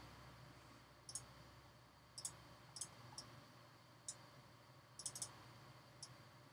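Computer mouse clicking: short, sharp clicks roughly every second, some in quick pairs or triplets, over a faint room hiss.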